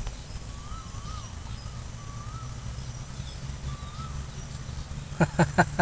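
Wind rumbling on the microphone, with a few faint whistled bird calls. About five seconds in comes a quick run of sharp clicks.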